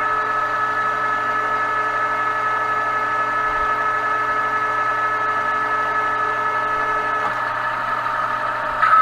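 Metal lathe running under power feed while turning the outer diameter of a metal arbor, a steady high-pitched whine with several fixed tones. Just before the end it briefly gets louder and harsher.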